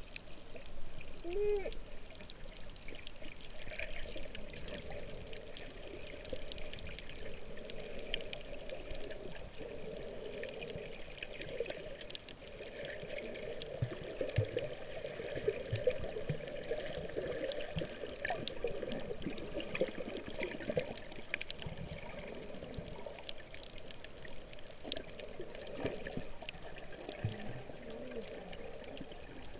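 Muffled underwater sound of moving water, heard with the microphone submerged, with many faint crackling clicks.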